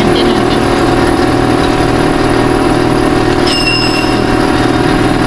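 Portable air compressor running steadily with an even motor hum. A brief high beep sounds about three and a half seconds in.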